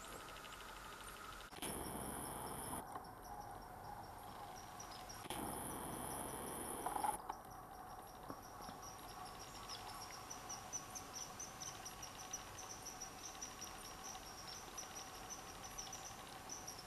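Crickets chirping in a steady, high, pulsing chorus. Two bursts of rustling noise, each a second or two long, break in during the first seven seconds; the second ends in a sharp knock.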